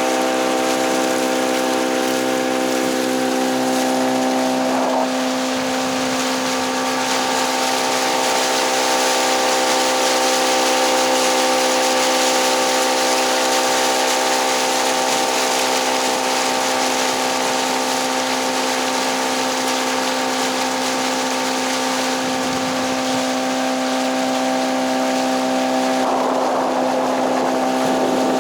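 Boat motor running at a steady speed, a constant droning tone over a loud rush of wind and water. The hiss swells briefly about five seconds in and again near the end.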